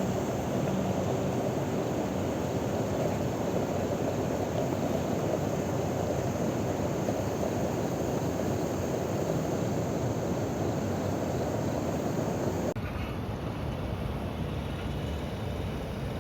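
Steady rushing of a river and small waterfall, a constant even noise. It drops slightly in level and changes character abruptly near the end.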